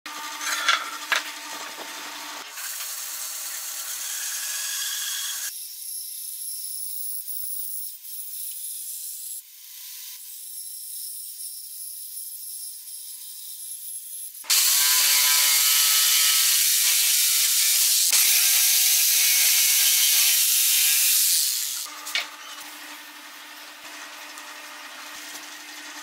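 A run of woodworking power-tool sounds as pine boards are cut, including a bandsaw running through a pine board. In the middle there is a loud, steady stretch of machine cutting lasting about seven seconds, and it stops abruptly near the end.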